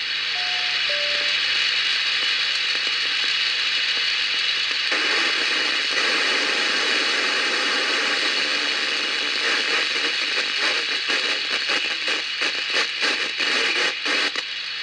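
Shortwave FM receiver hiss on the KQ2H 10-metre repeater channel between transmissions. About half a second in, the repeater gives two short beeps, a higher one then a lower one, like a courtesy tone. The hiss grows fuller about five seconds in and begins to flutter near the end.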